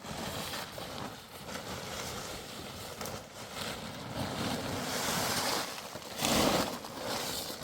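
Wind buffeting the microphone, an uneven rushing noise that swells to a louder gust about six seconds in.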